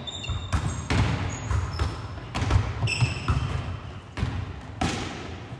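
Volleyballs struck in a defence-and-setting drill: a string of sharp ball contacts and thuds, irregularly spaced, with short high shoe squeaks on the sports floor between them, echoing in a large gym hall.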